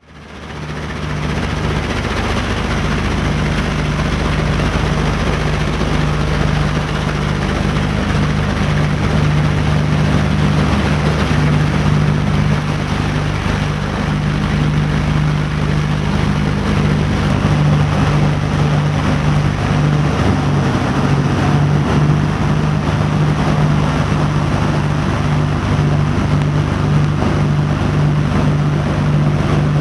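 Twin radial piston engines of a B-25 Mitchell bomber droning steadily in flight, heard from inside the aircraft, with a steady low hum throughout. The sound fades in over the first second.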